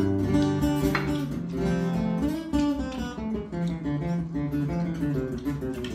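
Background music of plucked and strummed acoustic guitar.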